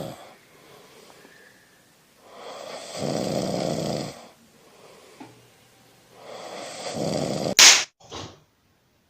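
A person snoring, three long rasping snores about three and a half seconds apart with quieter breaths between. Near the end comes a sharp, very loud burst and a shorter second one, then the sound cuts off.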